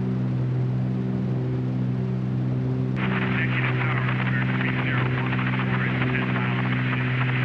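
Cessna 310Q's twin piston engines and propellers droning steadily at takeoff power, heard as a low hum through the intercom recording. About three seconds in, a steady hiss like radio static starts suddenly and carries on over the drone.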